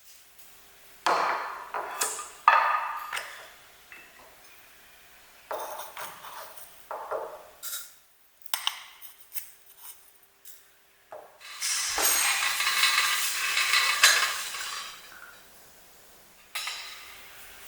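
Kitchen clatter of dishes and utensils: separate clinks and knocks, with a longer stretch of continuous clattering noise about twelve seconds in.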